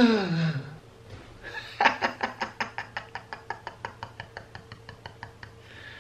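A man's short voiced cry falling in pitch, then a run of rapid laughter, about five pulses a second, fading away.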